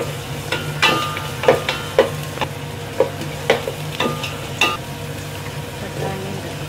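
Wooden spatula stirring vegetables in hot oil in a metal pot, knocking against the pot about twice a second, some knocks leaving a brief metallic ring, with a faint sizzle and a steady low hum underneath. The knocking stops about three quarters of the way through.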